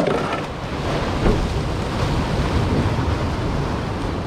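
Ocean surf washing and churning against the concrete blocks of a breakwall, with a steady low rumble of wind buffeting the microphone.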